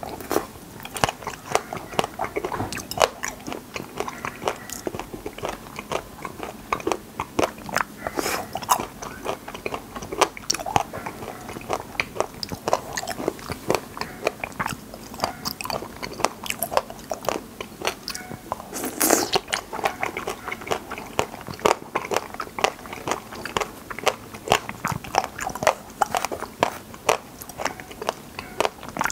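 Close-miked chewing and biting of wild raspberries: a steady run of quick wet mouth clicks and small crunches, with one louder bite about nineteen seconds in.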